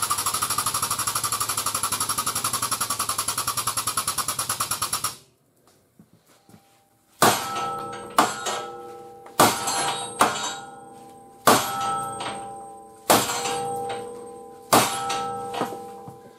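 Air-over-hydraulic pump of a dozer-type frame straightener running with a rapid, steady chatter as it drives the pull, cutting off about five seconds in. After a short pause come about nine hammer blows on the car's metal structure, each ringing out.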